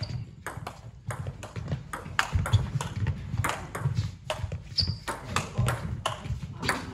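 Table tennis ball clicking back and forth off the bats and table during a rally, quick sharp clicks at about three a second, with a brief high squeak near the middle.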